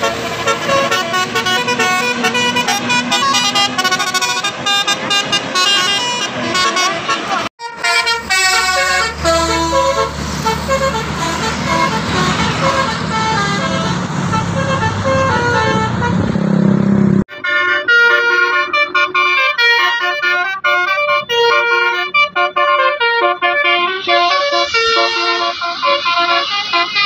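Bus 'telolet' multi-tone musical horns playing rapid melodic tune sequences, several notes at once stepping up and down. The tune breaks off abruptly about seven and seventeen seconds in and starts again, with a bus engine rumbling underneath in the middle stretch.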